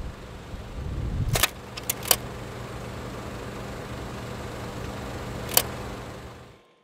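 Low wind rumble on the microphone over a boat's wake, cutting off about a second and a half in. A steady low hum follows, with sharp clicks: a few close together around two seconds in and one more near the end, before it fades out.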